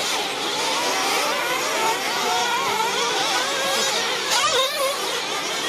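Several radio-controlled 1/8-scale truggies racing, their motors whining high and constantly rising and falling in pitch as they accelerate and slow through the track.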